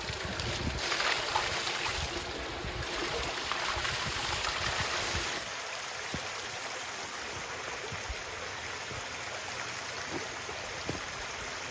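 Water from a pump-fed pondless waterfall running steadily down a rock creek and cascading over a wall into a trough. Wind rumbles on the microphone for the first five seconds or so, then drops away, leaving the steady rush of water.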